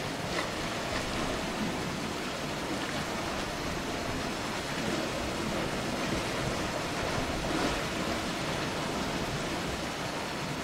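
Steady rushing noise of surf on a rocky shoreline, with a couple of faint ticks near the start.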